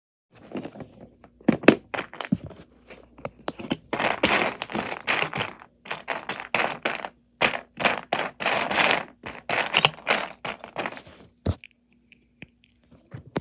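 Plastic MathLink cubes being handled: irregular sharp clicks and knocks as cubes are snapped together and set down, mixed with short rattling, rustling bursts.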